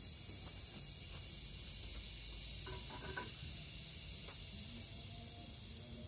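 Cicada singing: a steady, high-pitched buzz that grows louder toward the middle and starts to fade near the end.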